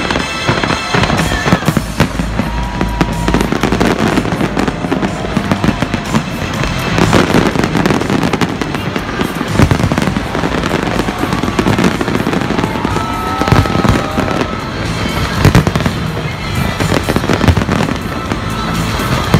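A big fireworks display going off: dense, continuous bangs and crackling from many shells and effects bursting close together.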